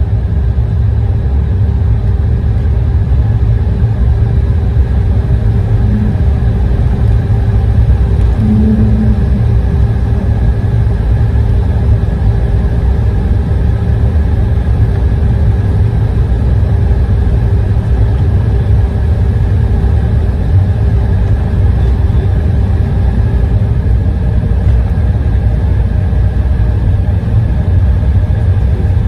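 Jet airliner cabin noise while the aircraft rolls on the ground after landing: a loud, steady low rumble from the engines and the wheels on the concrete slabs, with a steady engine hum on top that fades partly near the end.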